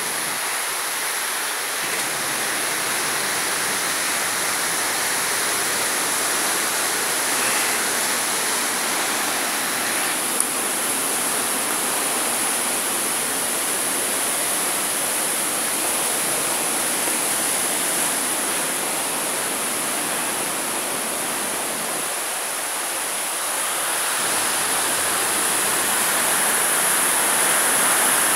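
Rushing water of a rain-swollen stream falling through a narrow rock gorge: a steady noise like a waterfall, growing a little louder near the end.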